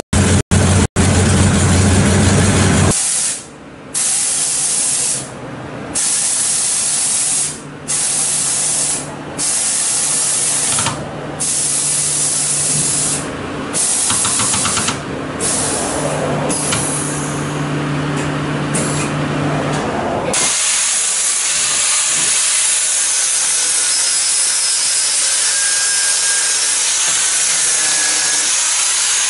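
Air suspension on a 1956 Chevrolet truck hissing in a string of short bursts as its valves let air through to change the ride height, over a low steady hum. About twenty seconds in, this gives way to an angle grinder running steadily as it cuts metal.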